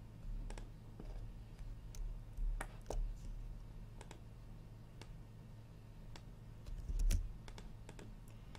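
Irregular clicks of a computer mouse and keyboard at a desk, spaced unevenly, the loudest about seven seconds in, over a faint steady low hum.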